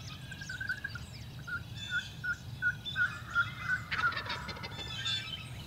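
Wild turkey calling: a run of yelps at about three a second, then a short rattling gobble about four seconds in. Songbirds chirp faintly behind.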